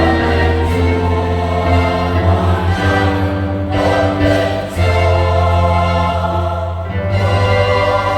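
Choir singing a Vietnamese Easter hymn in held chords over steady instrumental accompaniment.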